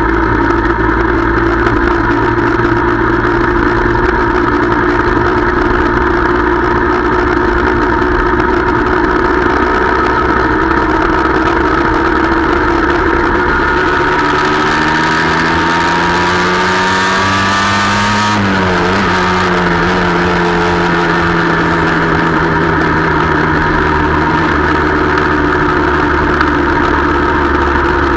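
Motorcycle engine running under way, heard from on board the bike. About halfway through, the revs climb for a few seconds, then drop abruptly and ease slowly lower.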